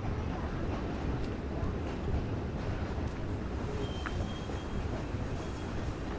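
Steady low rumble of a large vehicle passing close by, with a short high-pitched tone about four seconds in.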